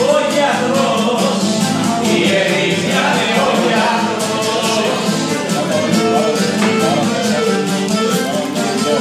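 Cretan traditional music played live: a Cretan lyra carries a wavering melody over a plucked lute strumming a steady rhythm, with singing.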